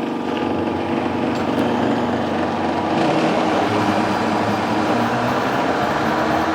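Blender motor running steadily, blending a thin liquid mix of milk and protein powder with its lid on.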